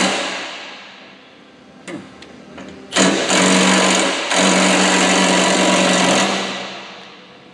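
Electric fuel pump on a John Deere 6090 9.0L diesel buzzing steadily while priming the fuel system to bleed out air and fill the filters. It winds down, a few faint clicks follow, then it starts again abruptly about three seconds in, stops briefly, runs on and fades out near the end.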